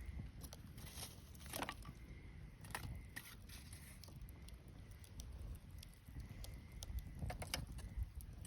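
Wood bonfire crackling: scattered pops and snaps, bunched about a second in and again near the end, over a low rumble.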